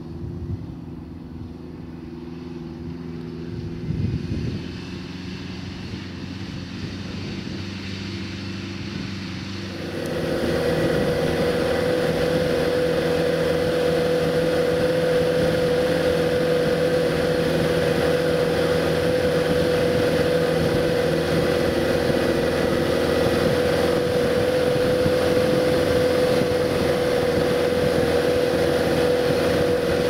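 Self-propelled crop sprayer's engine running steadily as the machine drives, heard at some distance at first. About ten seconds in it becomes much louder and close, heard from on board the sprayer, with a strong steady whine over the engine noise.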